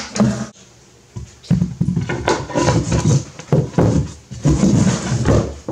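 A corded drill stops about half a second in. Then a wooden drawer is slid in and out of its wooden opening several times, wood rubbing and knocking against the frame as the newly fitted stop is tried.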